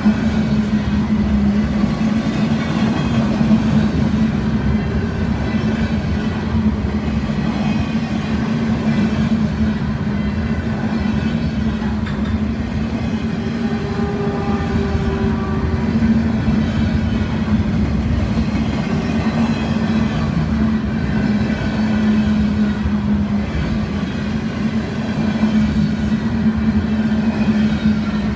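Loaded freight flatcars rolling past on the rails: a continuous loud rumble of wheels on track with a steady low hum, and faint higher tones that come and go.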